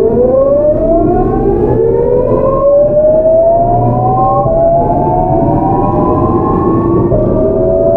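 GEC Alsthom GTO-thyristor VVVF inverter of a Seoul Metro 8000-series train accelerating, its whine climbing in pitch in several stepped glides that restart lower as the inverter changes mode. Underneath is the steady running rumble of the train.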